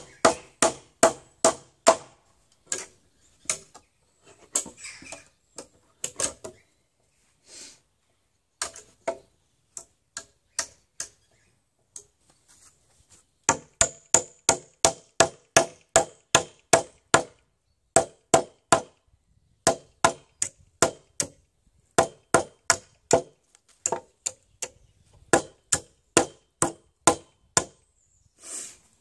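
Hammer blows on nails sticking out of a wooden beam: runs of sharp knocks about two to three a second, broken by short pauses.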